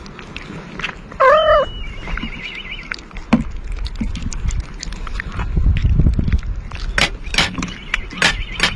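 Two cats chewing and smacking wet food from a metal bowl, a run of quick wet clicks. About a second in, a short pitched animal call is heard, then a thin high wavering tone, and a low rumble rises in the second half.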